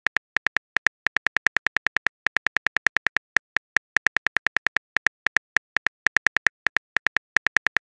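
Phone keyboard typing sound effect: a fast run of short, high clicks, about seven a second, with a few brief pauses, as a message is typed out letter by letter.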